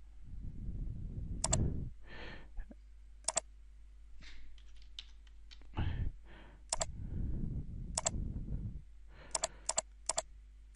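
Computer mouse clicking, each click a quick press-and-release pair, spaced a second or more apart and then three in quick succession near the end, with soft low rustling between.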